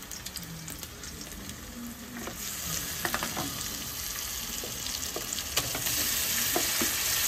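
Food sizzling in hot oil in a pan on the stove, a dense steady hiss that grows louder partway through, with a few light knocks of stirring.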